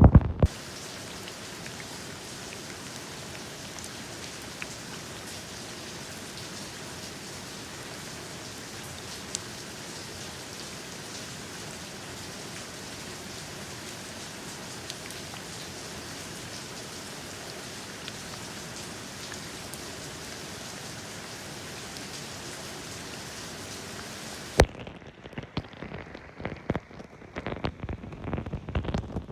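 Steady rain falling, an even hiss of many drops. About 24 seconds in it cuts off with a click and gives way to an uneven, gusty sound with a low rumble.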